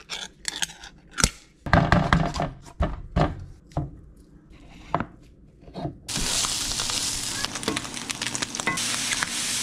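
Knife knocking on a wooden cutting board as a block of Spam is cut up, then about six seconds in a steady sizzle as diced Spam fries in a cast iron skillet.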